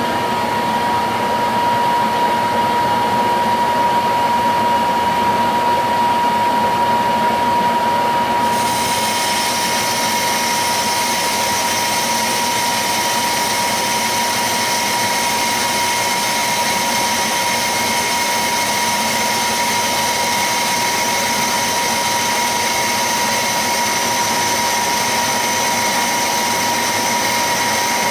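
Monarch 10EE lathe running, turning a cast iron chuck mounting plate: a steady high whine over a constant machine noise, with a brighter hiss joining about eight seconds in.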